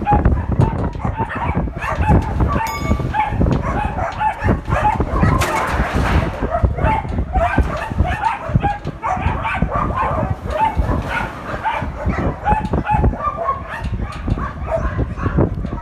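Many dogs barking and yelping at once, a dense overlapping chorus of short calls, over a low rumble.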